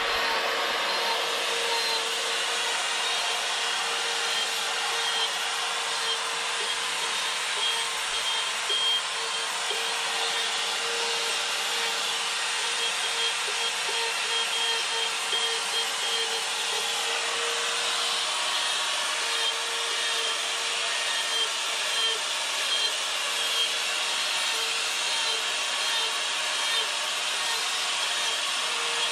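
Handheld electric rotary carving tool running steadily with a burr bit grinding into a small wooden heart: a constant high motor whine under a rough rasp of the burr cutting wood.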